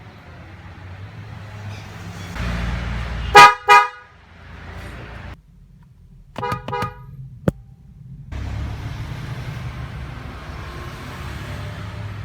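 Bosch H3F fanfare car horn sounding two loud short toots, then, about three seconds later, two shorter and quieter toots, over a low rumble, followed by a single sharp click.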